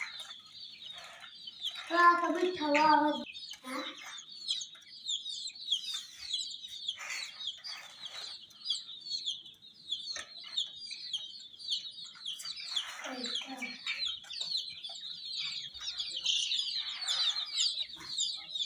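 Many baby chicks peeping without a break, their high calls overlapping. About two seconds in, a louder, lower pitched call sounds for about a second.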